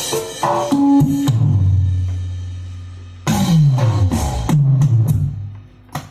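Drum and percussion sounds from a Roland SPD-20 Pro electronic percussion pad being played: a few short pitched hits, then a long low tone that fades over about two seconds, then a quick run of notes falling in pitch.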